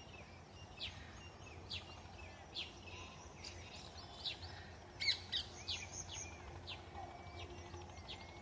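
Birds calling in open farmland: short, sharp chirps repeated about once a second, with a quick flurry about five seconds in. Beneath them runs a faint low hum of distant road traffic.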